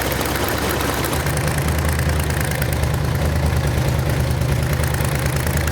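Freshly rebuilt Ford 351 Cleveland V8 running steadily on its open headers, its note picking up slightly about a second in. Exhaust is leaking past the cheap stamped-steel header gaskets, which have not sealed.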